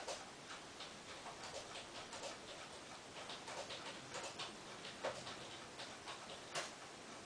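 A Bengal cat licking her sister's fur as she grooms her: faint, irregular licking clicks, a few a second, with two louder ones in the second half.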